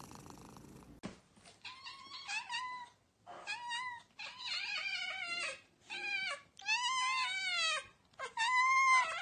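Siamese cat meowing over and over from about a second in: a run of about seven drawn-out calls, each rising and falling in pitch.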